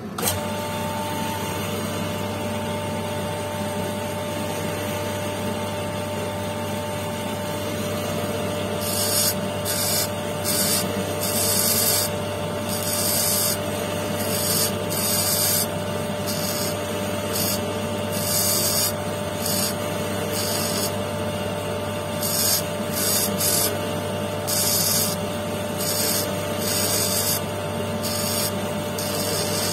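Electric motor spinning an abrasive wheel on its spindle, running with a steady hum. From about nine seconds in, a quartz stone pressed against the wheel gives repeated short, hissing grinding strokes as it is shaped.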